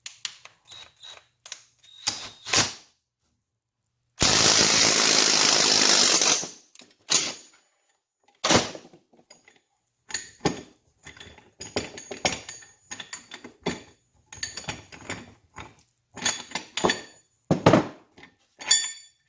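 Metal tools and engine parts clinking and knocking on a workbench as a two-stroke bicycle-engine crankshaft is worked on. About four seconds in, a power tool runs for about two seconds.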